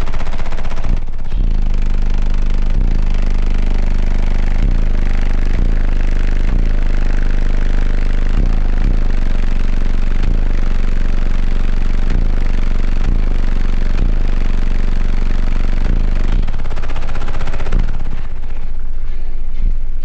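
Car-audio bass demo through a wall of twelve Crossfire XSV2 15-inch subwoofers, heard from inside the vehicle's cabin at extreme level: deep bass notes that change about once a second, with some sweeping downward, overlaid by a dense rattle. It comes in hard about a second in and eases off near the end.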